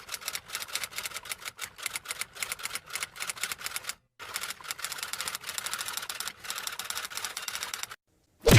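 Typing sound effect: rapid, irregular key clicks in two runs split by a short break about four seconds in. A brief, loud thud near the end.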